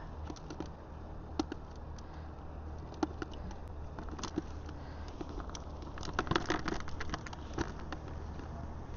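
Herring being shaken off fishing hooks into a bucket: scattered light taps and clicks of flapping fish and tackle, thickest about six seconds in, over a steady low hum.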